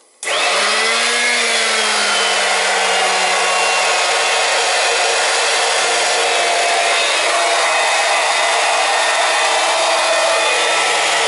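Small electric transfer pump switched on, drawing glycol antifreeze out of a bucket to fill a hydronic boiler. It starts suddenly and runs steadily: a motor hum that rises briefly and settles a little lower in the first few seconds, over a loud hiss.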